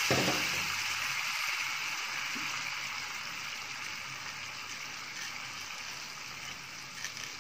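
Water sizzling in a hot pan of ghee-fried fine vermicelli just after a cup of water is poured in: a steady hiss that dies down gradually.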